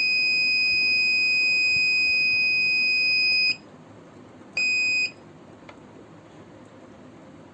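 Kent RO Grand+ water purifier's electronic buzzer giving one long steady high beep of about three and a half seconds, then a short beep about a second later, while its button is held down to reset the filter-change alert.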